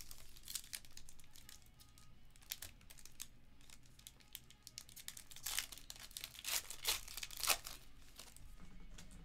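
Foil wrapper of a 2022 Panini Diamond Kings baseball card pack crinkling as it is handled and torn open. The loudest crackles come about five to seven and a half seconds in.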